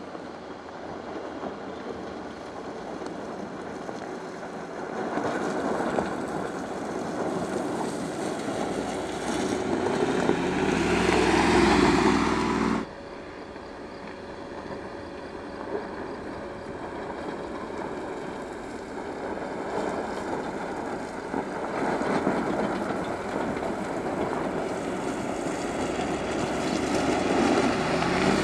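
Mercedes G500 with its 4.0-litre V8, driving down a steep loose-gravel slope; the engine and tyres on gravel grow louder as it nears. The sound breaks off suddenly about halfway through, then builds again.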